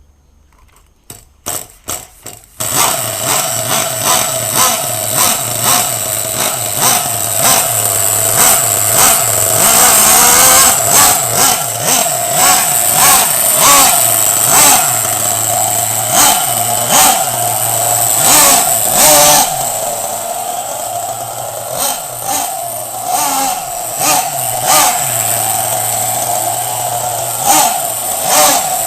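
Nitro engine of an LRP S8 Rebel BX RC buggy, fitted with a chrome dual-tailpipe exhaust, sputtering briefly and then catching about two and a half seconds in. It runs with a steady high-pitched buzz, and the throttle is blipped over and over in short revs.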